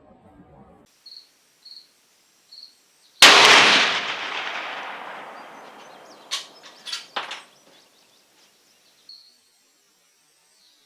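A single heavy rifle shot from a .416 Ruger bolt-action rifle about three seconds in, its report rolling away over the next few seconds. A few sharp clicks follow about three seconds after the shot.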